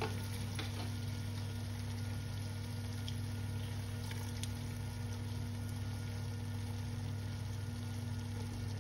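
A pot of curried vegetables simmering on low heat, a faint steady sizzle over a constant low hum, with a couple of faint ticks.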